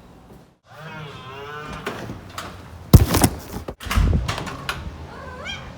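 A house cat meowing: one long drawn-out meow about a second in and a short rising meow near the end. Two loud thumps come between them, about three and four seconds in.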